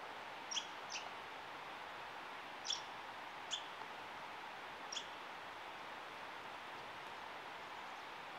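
A bird giving five short, high chip notes at irregular intervals over a steady faint background hiss.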